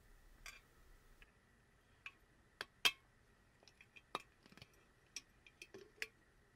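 A sealed glass jar being opened by hand: a scatter of small clicks and clinks from the lid and glass, the loudest about three seconds in. There is no hiss or pop, because the jar held neither built-up pressure nor a vacuum.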